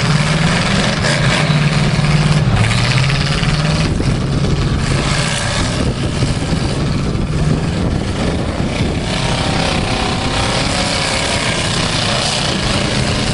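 Demolition derby cars' engines running hard and steadily with a dense, rough noise as the last two cars keep battling.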